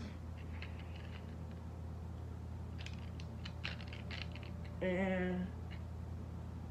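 Faint clicks and light taps from small objects being handled, over a steady low hum. About five seconds in comes a short, held hummed vocal note from a woman, the loudest sound here.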